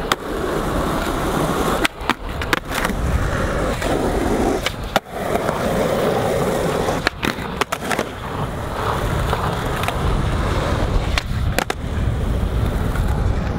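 Skateboard wheels rolling across a painted outdoor court surface, a continuous loud rumble broken by several sharp clicks as the wheels hit cracks or the board knocks.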